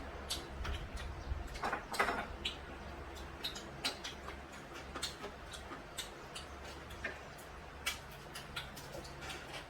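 Close-up eating sounds: chewing, with irregular small clicks and smacks, a few a second.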